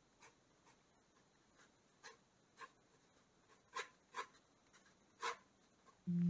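Mechanical pencil scratching on drawing paper in short, separate sketching strokes, about a dozen, louder in the second half. Background music comes in right at the end.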